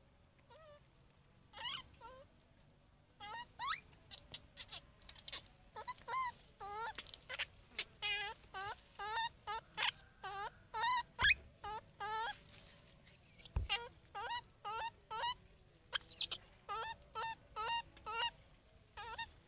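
Baby monkey calling over and over: short high calls, each bending up and down in pitch, in quick runs of several a second with pauses between runs. A couple of low thumps come near the middle.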